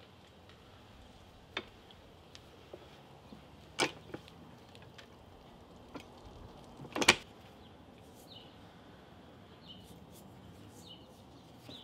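Clicker press cutting leather with a cutting die: a few light clicks and knocks as the die is set down on the cutting board, then the loudest sound, a sharp double clunk about seven seconds in as the press comes down on it.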